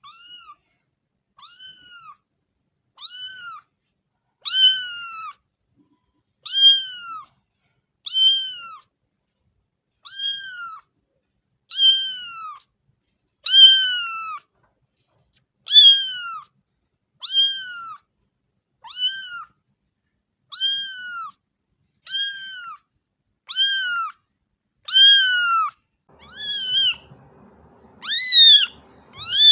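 Cat meowing over and over, one high-pitched rise-and-fall meow about every second and a half to two seconds. The last few meows are louder, over a faint background hum.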